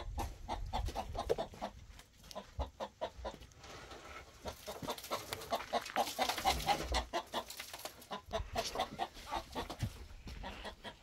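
Chickens clucking: a run of many short clucks, busiest in the middle.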